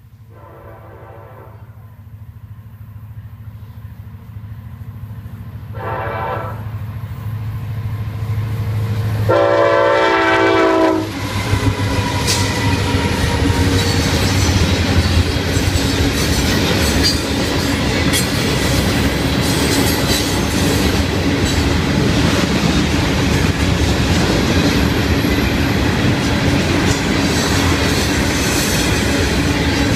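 Florida East Coast diesel freight locomotives approaching with three air-horn blasts for the grade crossing, the last and longest ending about 11 seconds in, over a low engine rumble that grows steadily louder. The lead units then pass close by and the loaded freight cars roll through, with steady wheel clickety-clack and rail rumble.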